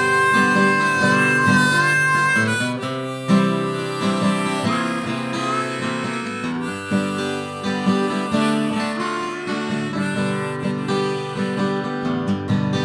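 Harmonica and flatpicked acoustic guitar playing an instrumental intro in a country-blues style. The harmonica holds one long high note for about two and a half seconds, then moves through shorter notes over the guitar's strummed chords.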